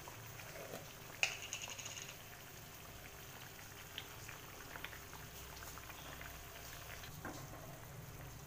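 Thick curry gravy bubbling and simmering in an aluminium kadhai, stirred with a wooden spatula, with faint scattered pops. There is one sharp tap with a short ring about a second in.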